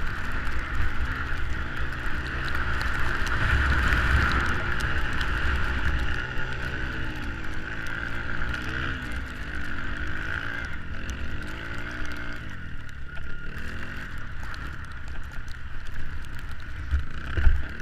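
Off-road vehicle engine running under varying throttle, its pitch rising and falling repeatedly, with a strong low rumble, and a short loud knock near the end.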